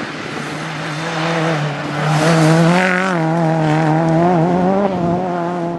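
Rally car engine running at high revs as the car goes past, its pitch wavering with the throttle and rising slightly, loudest about two to three seconds in.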